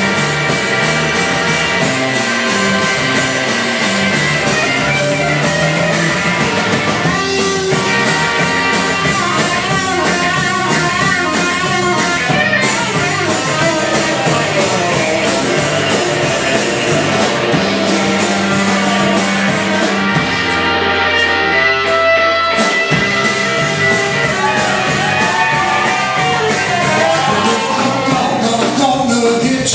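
Live rock band playing an instrumental passage on electric bass, electric guitar and drum kit. A low note is held for a few seconds past the middle and cuts off sharply.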